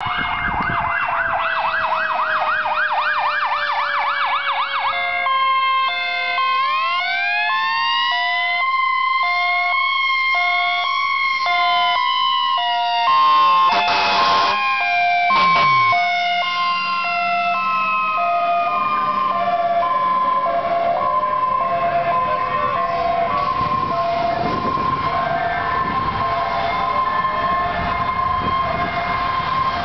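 Fire engine sirens passing. An electronic siren yelps fast, then falls into a wail. From about six seconds in, a Federal Q2B mechanical siren winds up, peaks and slowly winds down, while a hi-lo tone alternates between two pitches; two short loud blasts come about halfway through.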